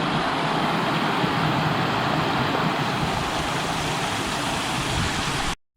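A steady, loud rushing noise with no pitch or rhythm, starting and stopping abruptly.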